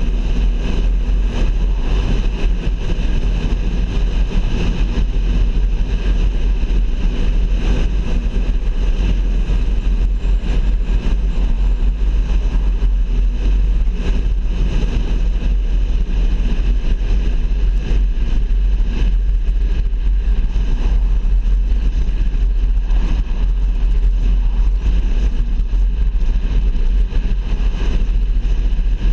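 Steady road noise of a moving car, with a strong low rumble.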